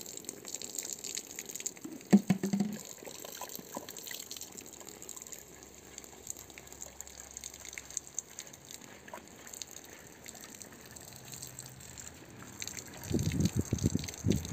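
Water gushing from a garden hose onto a carpet, a steady splashing hiss. A sharp knock about two seconds in, and a run of louder low thumps near the end.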